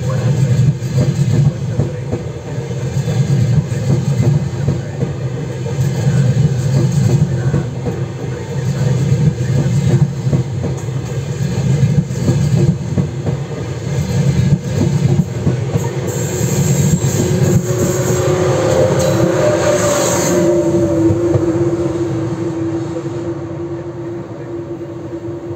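Trenitalia Frecciarossa high-speed train rolling past along a station platform: a steady wheel rumble with clicks over the rail joints. A high squeal and whine rise for a few seconds in the second half, then the sound fades as the last car clears.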